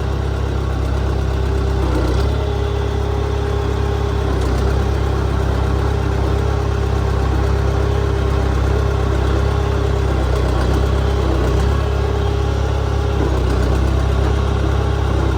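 Case 188 diesel engine of a Case 580CK backhoe running steadily while its hydraulics are worked to fill the empty cylinders with oil. A steady whine sits over the engine from about two seconds in to about ten seconds in.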